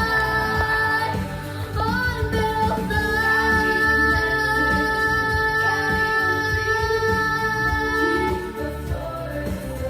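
A song sung by students, the voices holding long notes and sliding up to a new note about two seconds in.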